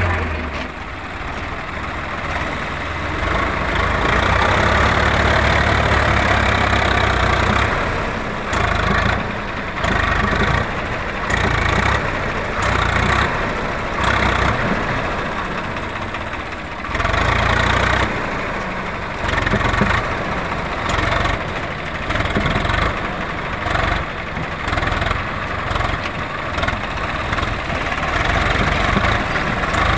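Swaraj 744 XT tractor's diesel engine working under heavy load as it drags a scraper blade through sand. The engine note swells and eases repeatedly.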